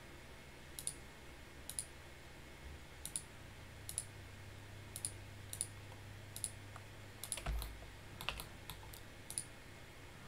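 A series of short, sharp computer mouse clicks, roughly one every half second to second, as points are placed one after another. A single low thump comes about seven and a half seconds in, over a faint steady low hum.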